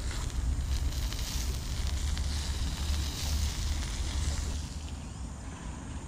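Wind buffeting the microphone in a low, uneven rumble over a steady outdoor hiss, easing a little after about four and a half seconds.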